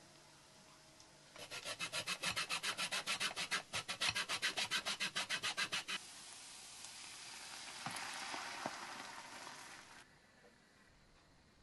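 Lemon rind being grated on a fine grater for lemon zest: quick, even rasping strokes, about five a second, for several seconds. After that comes a softer steady hiss as cream is poured into the hot pan of fried onions, which stops a few seconds later.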